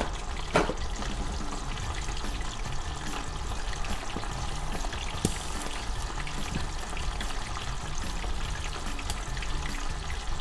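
Flour-coated chicken pieces deep-frying in hot oil in a saucepan, a steady bubbling sizzle as they are stirred with wooden chopsticks. A sharp click about half a second in, and a smaller one a little after five seconds.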